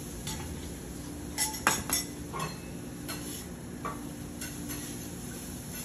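A metal utensil clicking and scraping against a flat-top gas griddle as steak, chorizo, peppers and onions are tossed and mixed, over a steady sizzle of the food frying. The clatter comes in irregular strokes, with a cluster of the sharpest clicks about one and a half to two seconds in.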